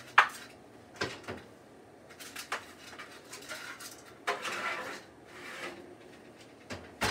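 A metal baking pan going into a kitchen oven: scattered sharp knocks and clatter of metal on the oven rack and door, with a short scraping stretch about halfway.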